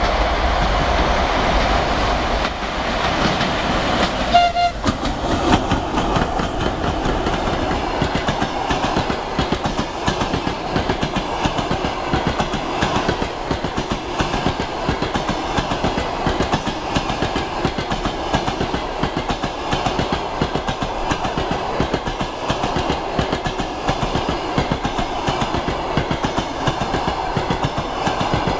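ChS6 Czechoslovak-built DC electric locomotive approaching with a passenger train, sounding a short horn toot about four seconds in, taken as the driver's greeting. Then the passenger coaches roll past close by with a continuous rhythmic clickety-clack of wheels on the rails.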